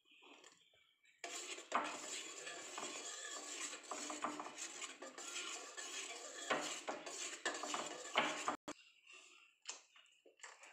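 Wire whisk scraping and clinking fast against a stainless steel pan as custard mix is whisked into hot milk, kept moving so no lumps form. The clatter starts about a second in and breaks off abruptly about eight and a half seconds in, leaving a few faint clinks.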